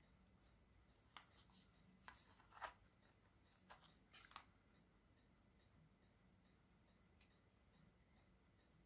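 Near silence: room tone with a faint, even ticking about two or three times a second, and a few small clicks and scrapes of handling between about one and four and a half seconds in.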